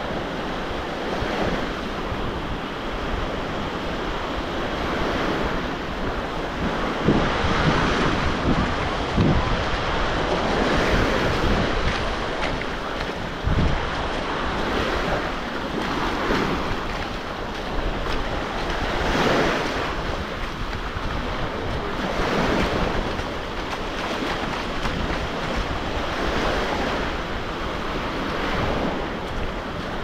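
Black Sea surf washing onto the shore, swelling and falling back every few seconds, with wind buffeting the microphone.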